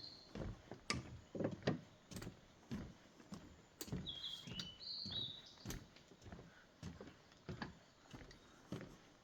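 Footsteps walking along a path, a steady run of irregular short knocks. About four seconds in, a songbird sings one short phrase of a few stepped high notes.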